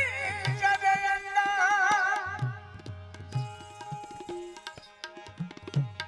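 Indian folk music: tabla with deep bass strokes that bend up in pitch, under a held, wavering melody line. The melody fades about two seconds in, leaving sparser drumming.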